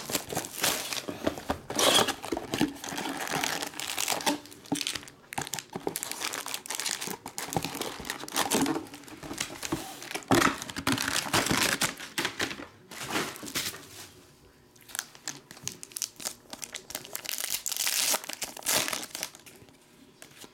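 Cellophane shrink-wrap crinkling and tearing as it is stripped off a box of trading cards, then foil card packs rustling as they are handled and opened. Softer, scattered rustles of cards for the last several seconds.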